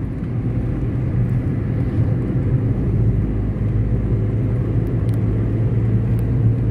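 Steady road and engine noise inside the cabin of a moving vehicle: a low hum with a rumble under it.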